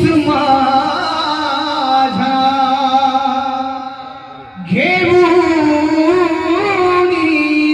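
Devotional bhajan singing: a voice draws out two long, wavering melismatic phrases without words, with instrumental accompaniment. The second phrase starts about two-thirds of the way in.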